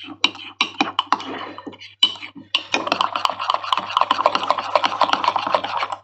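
A spoon stirring and mashing thick cake batter in a ceramic mug, scraping and knocking against the sides to break up lumps. The strokes are scattered at first, then fast and steady from about two and a half seconds in.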